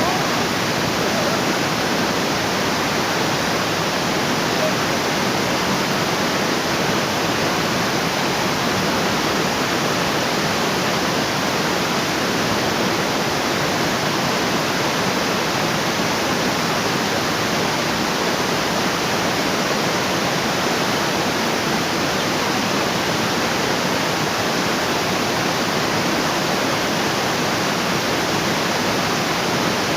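Waterfall water falling and rushing in a loud, steady roar of white noise that does not change.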